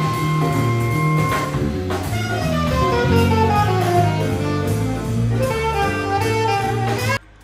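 Small live jazz band playing: saxophone, trumpet and trombone over a drum kit, with a falling run of horn notes around the middle. The music cuts off abruptly just before the end.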